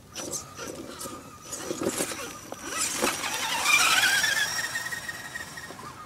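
Electric drive motor and gearbox of a small RC scale rock crawler whining as it climbs rock. The whine rises in pitch about three seconds in and then holds, with scattered knocks of tyres and chassis against the rock.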